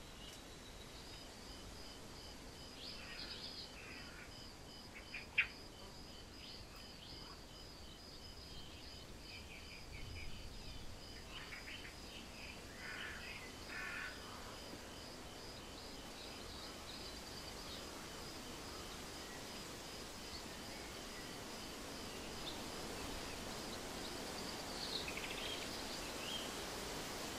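Quiet countryside ambience: a steady, pulsing insect trill with scattered bird chirps over a faint hiss.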